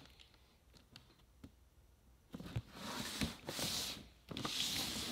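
A cardboard camera box being handled: quiet at first with a few light ticks, then from a little over two seconds in the cardboard slides and rubs under the hands in several scratchy strokes, with a few soft knocks.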